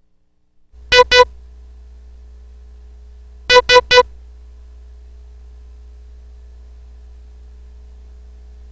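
Slow Morse code practice tones: two short beeps (dit-dit, the letter I), then after a pause of about two seconds three short beeps (dit-dit-dit, the letter S). A low steady hum sits underneath.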